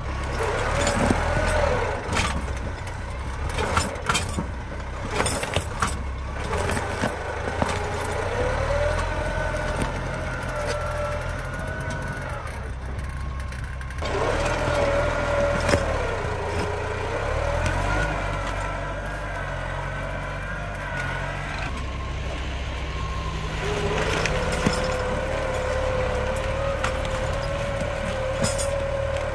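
Tractor diesel engine working under load as a three-disc plough cuts through soil and roots. The engine note wavers up and down and shifts abruptly a couple of times, with scattered knocks from the plough.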